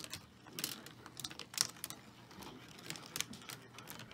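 Wooden marble run being hand-cranked: steel marbles clicking and clattering against plywood tracks and gear parts in a string of unevenly spaced small clacks.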